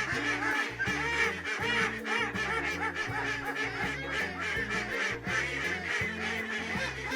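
Ducks quacking repeatedly over background music with a low, stepping bass line.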